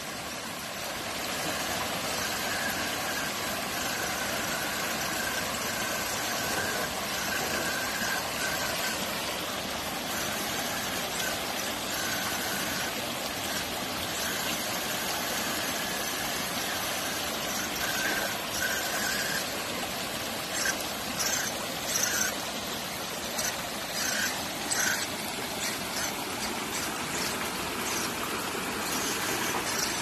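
Water rushing over rocks in a small stream, with the thin, steady whine of an ECX Barrage Gen 2 micro RC crawler's electric motor and gearbox cutting in and out as it climbs through the flow. In the last third there are short, sharp clicks and knocks of the crawler working over the rocks.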